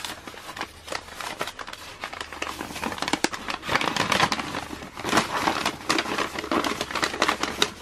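Crumpled gray packing paper crinkling and rustling as it is pulled from a cardboard box and handled, in irregular crackles that come and go.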